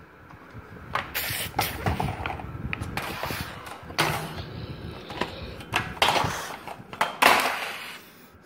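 Handling noise: rustling, brushing and soft knocks as plush toys and the phone are moved about, in irregular bursts with the loudest near the end.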